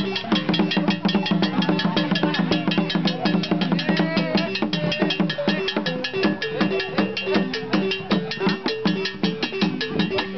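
Gourd-resonated wooden xylophone played in a fast, steady stream of notes, about nine strikes a second, with a small laced drum beaten with a stick alongside.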